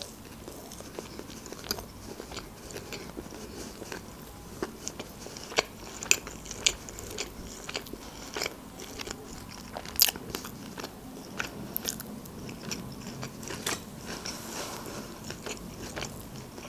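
Close-miked chewing of sushi rolls: wet mouth sounds with many scattered sharp clicks and bites, the sharpest about ten seconds in.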